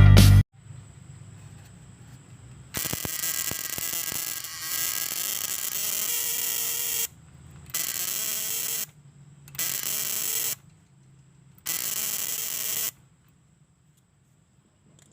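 Horn relay wired as a self-interrupting buzzer driving an ignition coil, buzzing harshly in four bursts: one of about four seconds, then three of about a second each.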